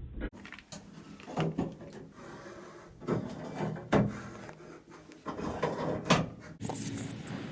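Knocks and clunks of objects being handled, like a drawer or cupboard being worked, with a quick run of high-pitched ticks near the end.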